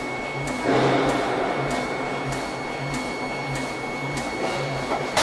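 Pneumatic forging hammer and forge-shop machinery running, with a regular beat of light knocks about one and a half a second over a steady high whine; a louder rush of noise comes about a second in.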